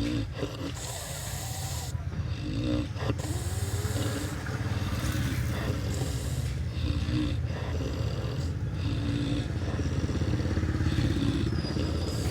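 A person snoring in sleep, one snore every two seconds or so, over a steady low vehicle rumble.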